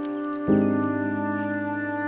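Background music: slow, sustained chords, with a new chord coming in about half a second in.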